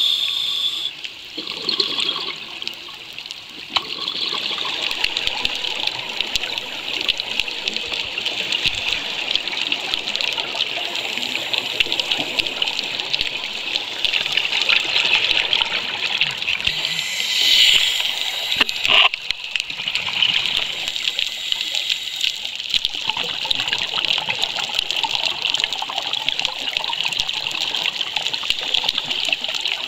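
Underwater sound of scuba diving: a steady rush of water and exhaled regulator bubbles with a constant fine crackle, swelling louder for a moment about 17 to 19 seconds in.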